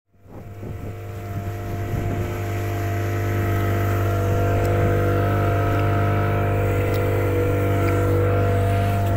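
Motorboat engine running steadily underway, a constant droning hum that comes in after a brief silence and grows louder over the first few seconds before holding steady.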